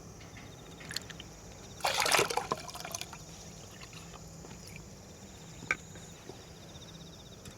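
A short splash and slosh of water about two seconds in, with a few light clicks and knocks around it. Insects trill faintly in the background.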